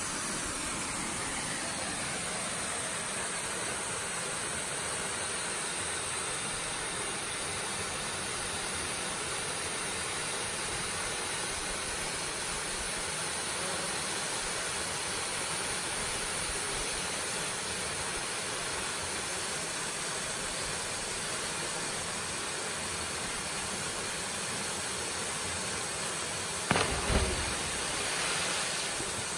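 Steady rushing of a waterfall pouring into a pool. Near the end, a loud splash as a person drops off a rappel rope into the water, briefly the loudest sound, with a smaller wash of water just after.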